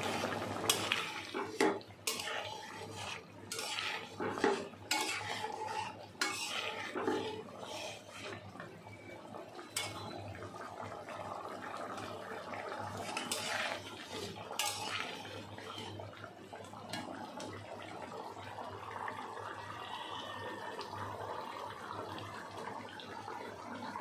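A metal spatula stirring and scraping in a pan of egg korma, with repeated clinks and scrapes against the pan through roughly the first fifteen seconds. After that it settles into a steady soft simmering of the gravy.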